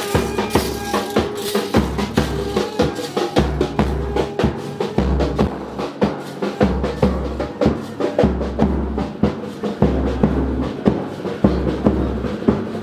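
A wedding band's bass drum and snare drum playing a steady beat, the bass drum booming about once a second under quick snare strokes, with some held melody notes over it early on.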